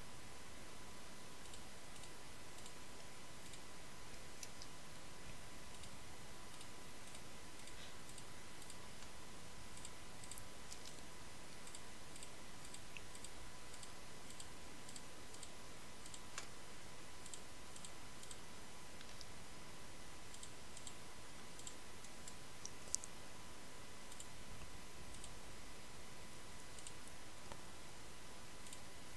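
Faint, irregular computer mouse clicks as the points of a spline line are placed one by one. A thin, steady electrical whine sits underneath.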